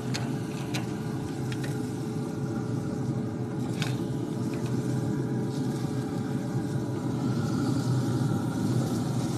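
Steady low hum of a pellet grill running with its lid open, with a few sharp metallic clicks as long tongs knock against the grill grate while the steaks are turned.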